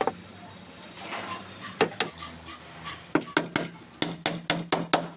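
Handsaw cutting through a plywood hull panel in quick, rapid strokes, starting about three seconds in after a couple of scattered knocks.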